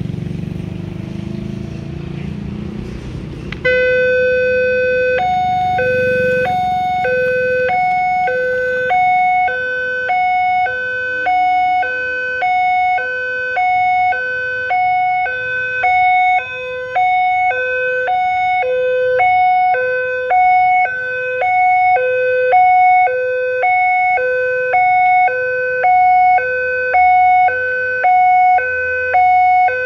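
Railway level-crossing warning siren starting suddenly about three and a half seconds in, then alternating fast between a low and a higher electronic tone, switching about every two-thirds of a second. It warns that a train is approaching and the barrier is closing.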